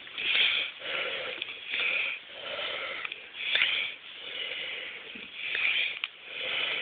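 A person breathing heavily close to the microphone, a noisy in-and-out breath swelling and fading about every one and a half to two seconds.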